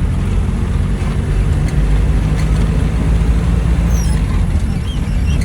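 Steady low rumble of a moving road vehicle's engine and road noise, heard on board during the ride.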